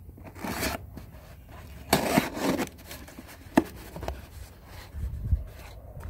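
Cardboard shipping box being handled and opened: short bursts of cardboard rubbing and scraping, with one sharp click a little past halfway.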